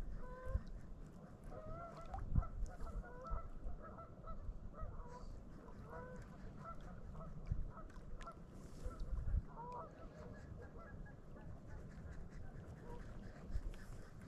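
A flock of geese honking repeatedly, many short calls over the first ten seconds or so, with a low wind rumble and a few thumps on the microphone.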